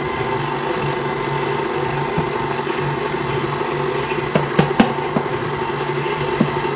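KitchenAid Classic tilt-head stand mixer running steadily, its flat beater churning thick batter in the stainless steel bowl with a pulsing motor hum. A few sharp knocks come about four to five seconds in.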